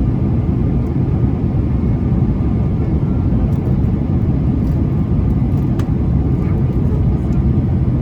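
Steady, deep cabin noise of an Airbus A330-300 airliner in descent, heard from inside the cabin: rushing air along the fuselage and the hum of its Rolls-Royce Trent 700 engines.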